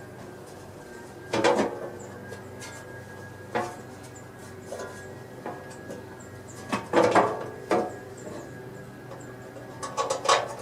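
Metal clanks and clatter of parts or tools being handled, in a few separate bursts, over a steady low hum.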